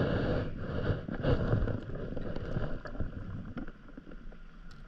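Wind buffeting the microphone in uneven gusts, strongest in the first second and easing off, with a few faint clicks.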